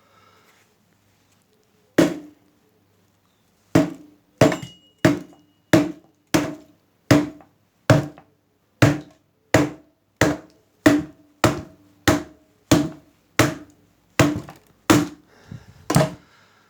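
Hammer blows on a Lister D engine's radiator core, knocking out the section that has been cut free. There is one strike, then a steady run of about eighteen more at roughly one and a half a second, each with a short metallic ring.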